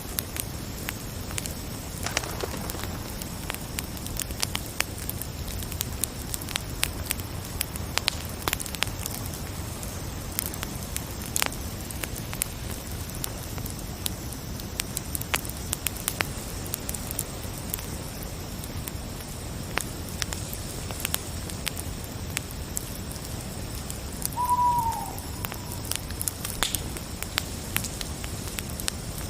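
Night forest ambience: a wood fire crackling with frequent sharp pops over a steady hiss, with a steady high chirring of crickets. About 24 seconds in, a single short call dips in pitch at its end.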